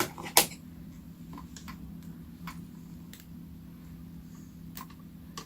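Scissors snipping thread ends: one sharp snip just after the start, then a few faint clicks spread through the rest.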